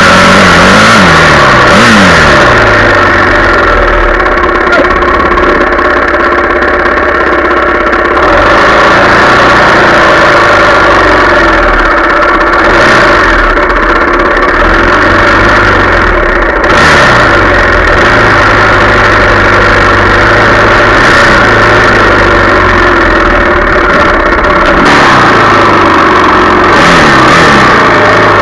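Yamaha 400 dirt bike engine running loud and close, its pitch rising and falling repeatedly as the throttle is worked while riding.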